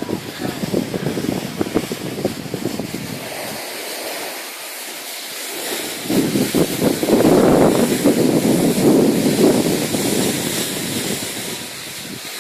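Wind buffeting the microphone over a rough, crackling scrape of snow close by, like board or boots sliding and crunching across packed snow. It dips briefly about four seconds in, then is loudest from about halfway through until shortly before the end.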